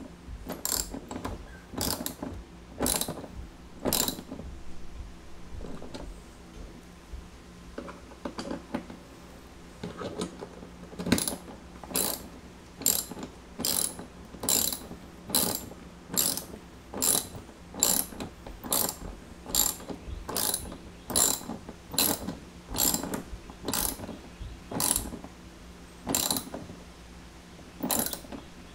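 Socket ratchet wrench clicking in short strokes, about one burst of clicks a second, as a bolt is tightened. There are fewer strokes for several seconds a few seconds in, then a steady rhythm resumes.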